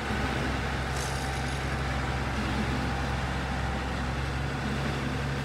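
Komatsu PC120 excavator's diesel engine running steadily, its low drone rising in level at the start as it comes under load.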